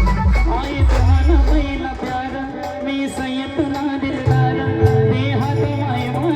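A woman singing with a live band, her voice carried over keyboard and deep bass. The low end is heavy for the first second and a half, and a steady bass note comes in from about four seconds in.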